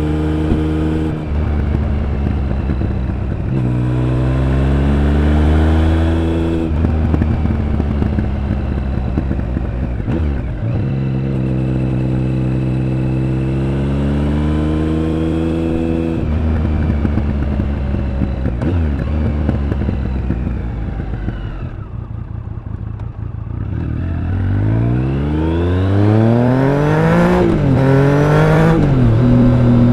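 Triumph Speed Triple 1050's inline three-cylinder engine and exhaust under way, pulling up through the gears with several upshifts in the first half. It quiets as the throttle eases about two-thirds through, then revs up hard with quick upshifts near the end.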